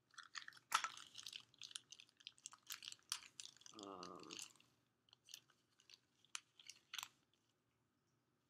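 Faint, irregular crinkling and crackling of small plastic packaging being opened and handled to get at tiny toy accessories; it stops about seven seconds in. A short hummed voice sound comes about four seconds in.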